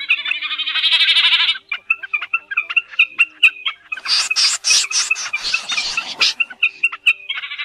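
Snipe calls: a rapid pulsed trill at the start and again near the end, scattered short chirps and clicks between, and a harsh rasping stretch of calls in the middle.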